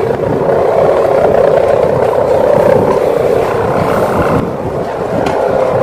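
Sendaren, the hummer strung on a flying bapangan kite, droning steadily in the wind over a low rumbling noise.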